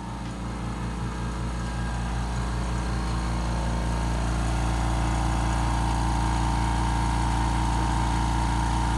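California-brand oil-free air compressor running, its pump motor giving a steady hum with a regular low pulse. It grows louder over the first few seconds, then holds steady.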